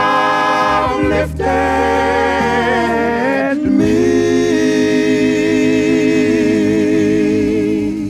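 Male gospel vocal group singing the song's closing drawn-out notes in harmony. The chords are held long, with brief breaks about a second in and near the middle. The last chord is sustained and starts to fade at the very end.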